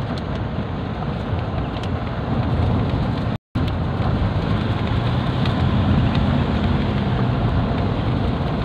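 Car driving on a paved road, heard from inside the cabin: a steady rumble of engine and tyre noise. About three and a half seconds in it drops out to silence for a split second.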